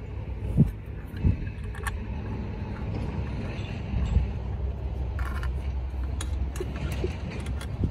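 Small metallic clicks and taps from a hand tool driving the mounting screw of a roof crossbar's foot into the roof rail, over a steady low rumble. A few sharp clicks come in the first two seconds, and lighter high clicks come from about five seconds on.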